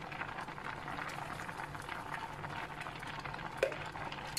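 Water boiling hard in a steel pot of half-cooked basmati rice, a steady bubbling, with one light knock near the end.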